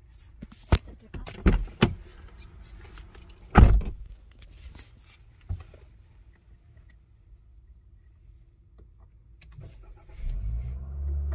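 A few sharp clicks and knocks inside the car's cabin, the loudest about three and a half seconds in, then about ten seconds in the 2022 Mitsubishi Outlander's four-cylinder engine starts and settles into a low idle. The engine is being restarted to reset an 'engine malfunction, power reduction' warning.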